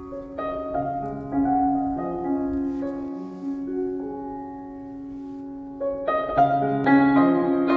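Soft background piano music: gentle sustained notes, with a fuller chord about six seconds in.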